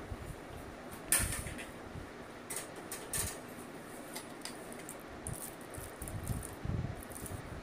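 Light kitchen handling sounds: a few short clicks and rustles of hands and utensils working with ingredients in a cooking vessel, the sharpest click about a second in and a cluster of softer ones over the next few seconds.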